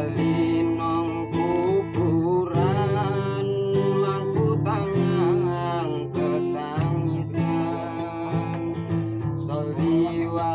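Music played on guitar, with a melody line that bends and wavers in pitch above a steady strummed accompaniment.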